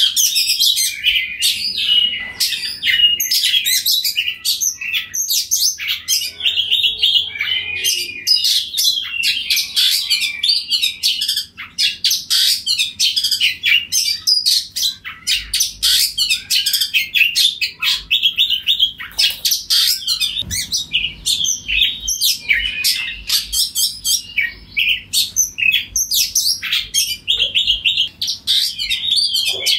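Oriental magpie-robin singing loudly and without pause, a fast stream of varied whistles and short chattering notes.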